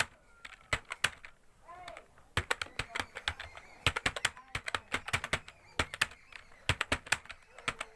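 Fast typing on a computer keyboard: rapid, irregular keystroke clicks in quick runs broken by short pauses.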